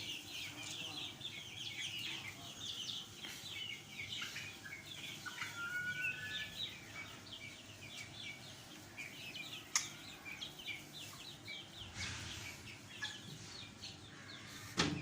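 A flock of chickens calling continuously: many short, high, overlapping chirps and clucks, with one sharp click about ten seconds in.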